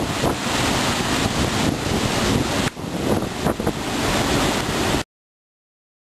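Sea surf breaking and washing over rocks, with wind buffeting the microphone. The sound dips briefly a little under three seconds in and cuts off suddenly about five seconds in.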